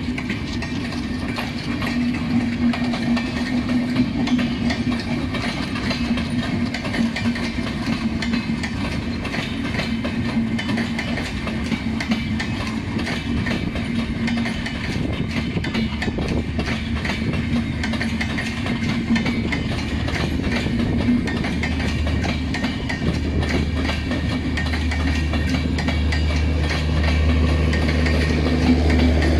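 Bangladesh Railway intercity express coaches rolling past close by, a steady stream of wheel-and-rail noise. A steady low engine hum joins in near the end as the train's louvred power car, with its diesel generator, draws near.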